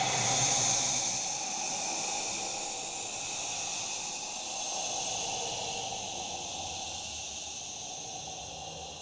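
Creature sound effect: a long, drawn-out hiss that swells in the first second, then slowly fades.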